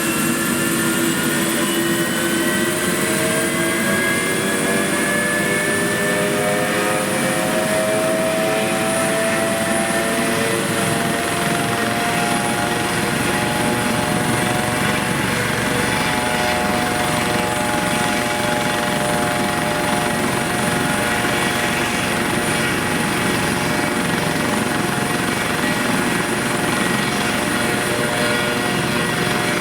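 AS365 Dauphin rescue helicopter running, its twin turbines and rotors making a loud steady rush. Several whining tones rise in pitch over the first dozen seconds or so, then hold steady.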